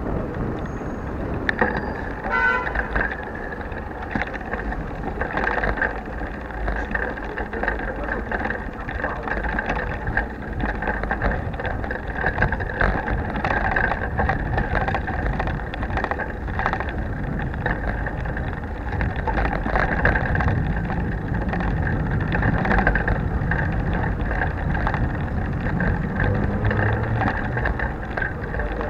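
Bicycle rolling over cobblestones, picked up by a bare action camera clamped to the handlebars: a constant rumble and rattle from the tyres and frame, jolted by many small knocks from the stones.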